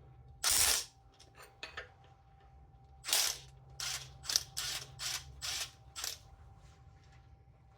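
Ratchet with a 14mm socket turning the cam gear bolt out: one long rasp about half a second in, then a run of about seven quick ratcheting strokes at roughly two a second.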